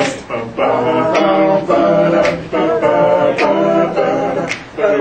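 Male a cappella group singing backing chords in short repeated blocks, with a sharp snare-like hit about once a second keeping the beat.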